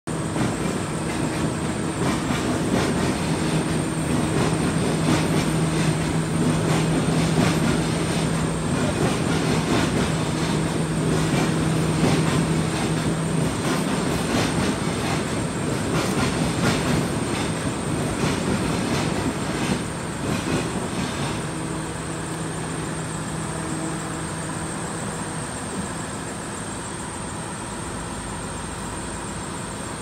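Crane's diesel engine running hard, a steady heavy rumble with a constant hum and some clatter. The hum drops out for several seconds about halfway and comes back, and the engine settles to a lower, even run after about twenty seconds.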